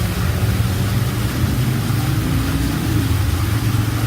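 A steady low mechanical hum, like a motor running, with no clear events over it.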